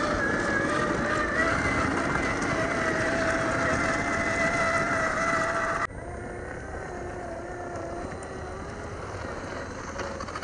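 Electric motor and gearbox of a Traxxas TRX4 RC crawler truck, a brushed 550 motor, whining steadily as the truck drives over rough ground. About six seconds in the sound drops abruptly to a quieter, lower whine.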